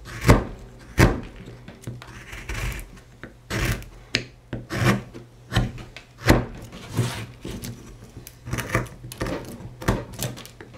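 Hand carving knife slicing and paring into a wood block: a series of short scraping cuts, roughly one or two a second, as a cut in the carving is cleaned out.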